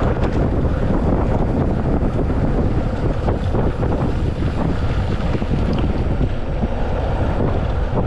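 Mountain bike riding down a trail, heard as steady wind buffeting the action camera's microphone over the rumble of the tyres, with scattered small clicks and rattles.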